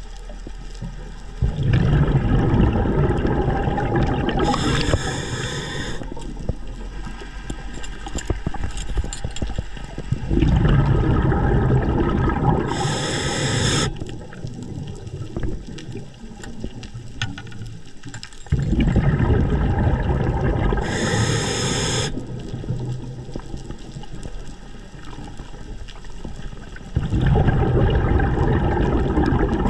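Scuba diver breathing through a regulator underwater: exhaled bubbles rumble in four stretches about eight seconds apart, each ending in a short hiss.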